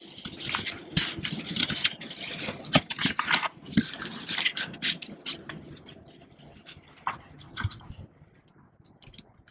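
Rustling and scraping handling noise with many small knocks, from a camera being moved about and rubbed by a gloved hand. It is busiest for the first five seconds or so, then thins out to a few scattered knocks.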